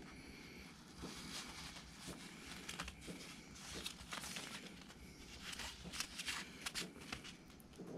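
Plastic sheeting crinkling and rustling in faint, irregular bursts under a hedgehog's feet as it scurries across.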